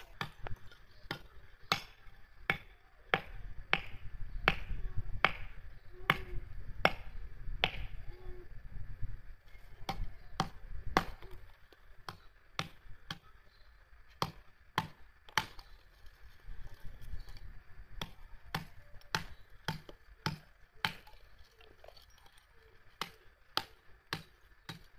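Lumps of charcoal being broken up by striking them on a concrete block: a long series of sharp, irregular knocks, at times about two a second.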